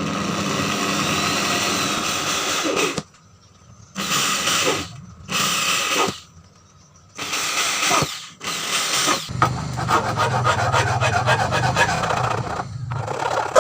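Handheld power tool cutting or grinding material, running in several short bursts with quiet gaps, then a steadier, rougher run with a fast pulsing over the last few seconds.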